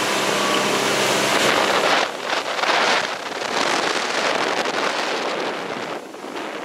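Wind gusting across the microphone on a moving boat, a rushing noise that swells and eases, loudest around two to three seconds in.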